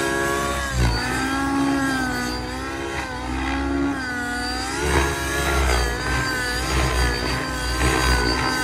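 Nitro glow engine and rotors of a MSH Protos Nitro RC helicopter in flight, the engine pitch dipping and rising every second or two as the rotor load changes through aerobatic manoeuvres. A steady high gear whine sits over it.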